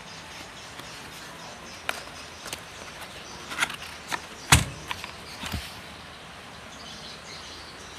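Irregular clicks and knocks, about eight to ten spread over a few seconds, the loudest near the middle with a dull thump, over a steady background hiss.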